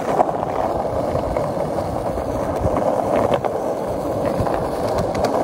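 Skateboard wheels rolling steadily over rough pavement, a continuous rumble, with a few sharp clicks near the end.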